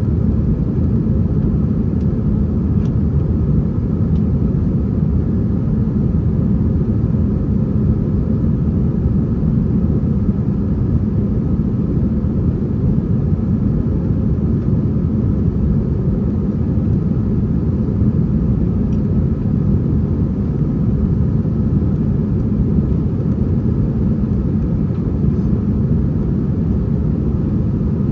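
Steady low rumble inside the cabin of an Airbus A321-231 airliner: the noise of its IAE V2500 jet engines and airflow heard from a window seat, with a faint steady hum above it.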